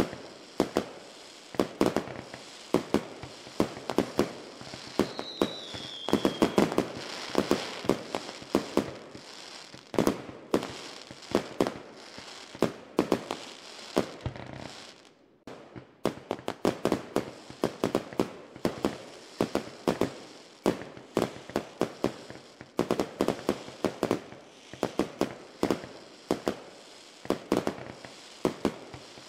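Fireworks going off in a dense, continuous run of sharp cracks and pops. A short falling whistle sounds about five seconds in, and there is a brief lull about halfway through.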